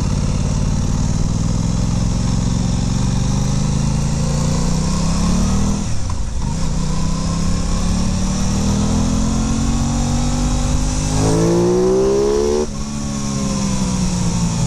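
Aprilia Tuono 660's parallel-twin engine accelerating hard through the gears. Its pitch rises and drops at an upshift about six seconds in, then climbs more steeply to a second upshift about two seconds before the end, and rises again.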